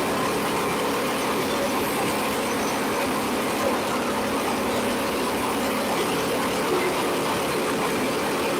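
Portable bandsaw sawmill running steadily as its blade cuts through a log, the gas engine holding an even pitch throughout.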